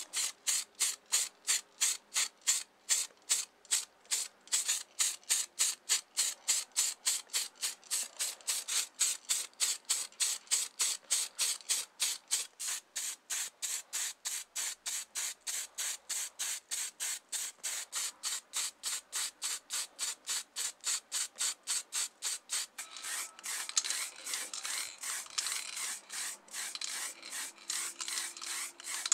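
Aerosol spray paint hissing from a can in short, rapid, evenly spaced bursts, about three a second. Near the end it turns into a more continuous spray.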